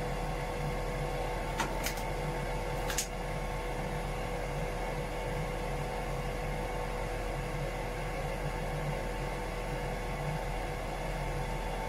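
Steady machinery hum in a boat's engine room, with a constant mid-pitched tone over a low drone. Three sharp clicks come close together about two to three seconds in.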